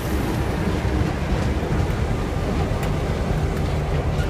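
Diesel-electric freight locomotives running past close by: a steady low rumble, with wind on the microphone.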